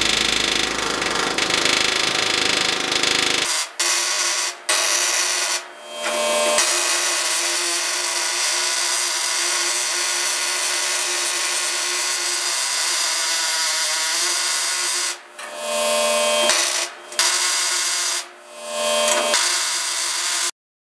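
Handheld pneumatic tool whining at high speed against the steel of a truck cab floor. It is let off and back on several times, with brief dips. There is a heavier low rumble in the first few seconds.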